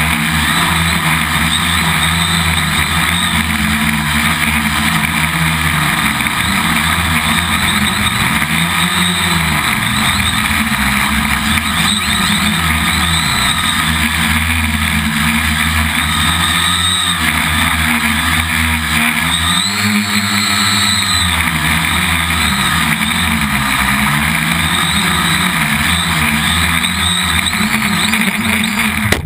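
Quadcopter's electric motors and propellers whirring loudly, heard from the onboard camera, with a pitch that keeps rising and falling. It cuts off abruptly at the very end as the quad nose-dives into the ground.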